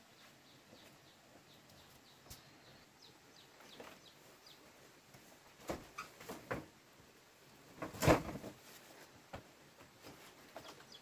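Birds chirping faintly, with a few sharp knocks about six seconds in and a louder knock about eight seconds in.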